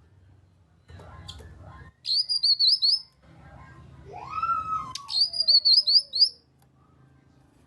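Cucak kinoi calling: two bursts of rapid, sharp high chirps about three seconds apart, with a lower whistle between them that rises and then slides slowly down.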